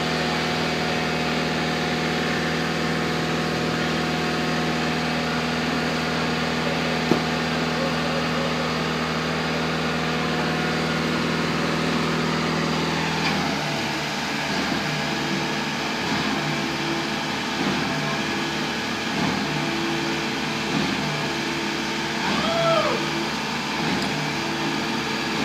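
A motor or engine running steadily with an even hum, its sound changing about halfway through to an uneven, pulsing note. Near the end a cat meows.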